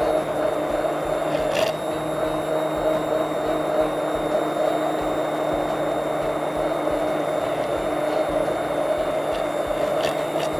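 IMUSA Click & Mix immersion blender running steadily in a plastic beaker of red pepper sauce, with a constant motor hum. Oil is being drizzled in a thin stream as it blends, emulsifying and thickening the sauce.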